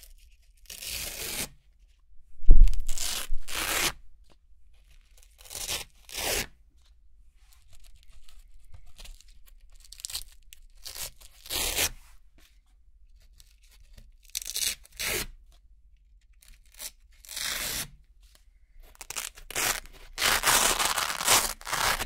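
Velcro hook-and-loop circles being peeled one at a time off a board of Velcro strips: about a dozen short, crisp rips with gaps between them. The loudest comes with a dull thump about two and a half seconds in, and the rips run longer and closer together near the end.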